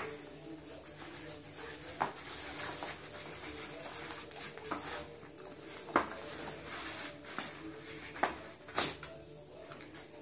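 A dog sniffing and nosing through an empty cardboard egg carton on a laminate floor, with cardboard rustling and scattered sharp knocks, the loudest about 2, 6 and 8 to 9 seconds in.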